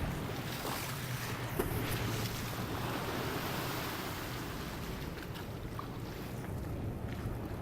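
Riverboat engine running with a steady low hum, under the rush of water and wind buffeting the microphone.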